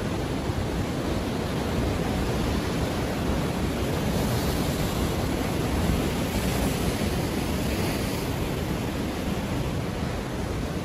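Steady rushing wash of ocean surf, with waves breaking continuously; the hiss brightens for a few seconds around the middle as a wave washes in.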